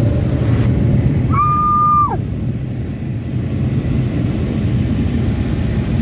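Steady rumble of road and engine noise from inside a moving car's cabin. About a second in, a steady high tone sounds for under a second and falls away as it ends.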